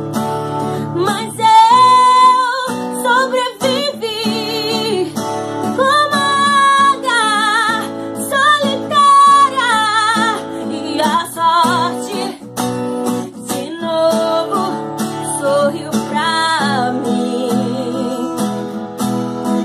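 Background music: a woman singing a Portuguese-language gospel song over acoustic guitar, her held notes wavering with vibrato.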